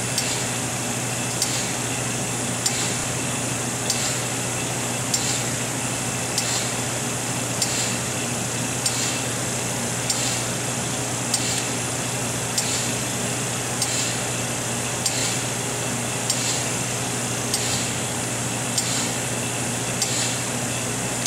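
ATV SRO 702/704 reflow oven running: a steady hum and hiss, with a light click about every second and a quarter.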